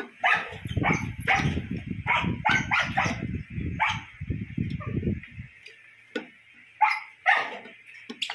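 A dog barking and yelping repeatedly in short sharp calls. A low rough buzzing runs underneath from about half a second to five and a half seconds in.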